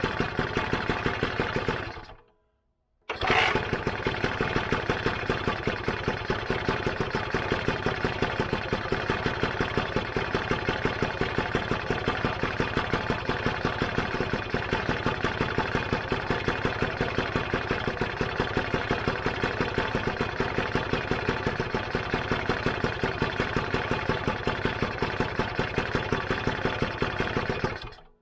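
Rebuilt Lambretta GP two-stroke single-cylinder engine running steadily after being kick-started, with an even pulsing beat. It dies away and goes silent about two seconds in, then is running again a second later, and cuts off suddenly near the end.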